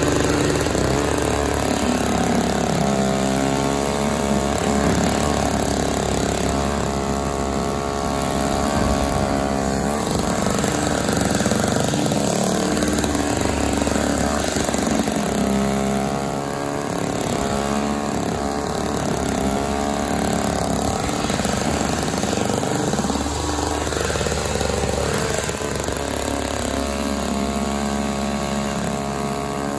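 Tecumseh 3.5 hp two-stroke single-cylinder engine of an MTD Yard Machines 21-inch single-stage snowblower running hard while it throws powder snow, its note wavering up and down several times.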